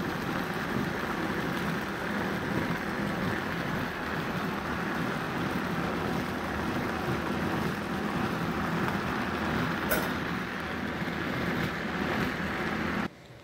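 Countertop blender running steadily as it purées cooked tomatillos and green chiles with cilantro, then switched off near the end, the noise stopping abruptly.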